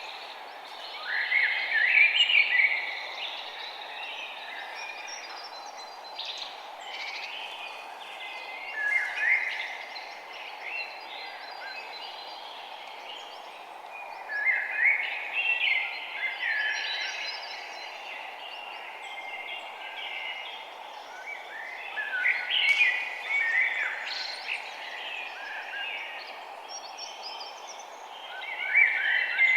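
Songbirds chirping and singing in short bursts of quick, sliding notes that come every few seconds, over a steady low background hiss.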